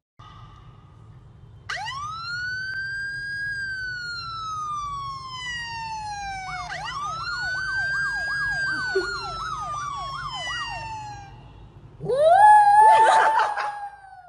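A siren sound wailing in two long sweeps, each rising quickly and then falling slowly, the second with a fast warbling tone over it. About twelve seconds in, a small white poodle-type dog howls loudly along with it.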